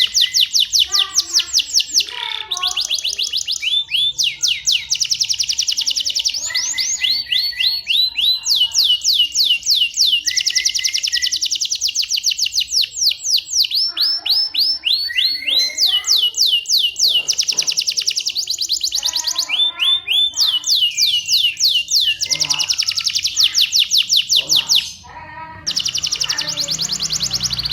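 Domestic canary singing a long, continuous song of fast trills: runs of rapid repeated high notes, about ten a second, one run following the next with hardly a pause, broken once briefly near the end.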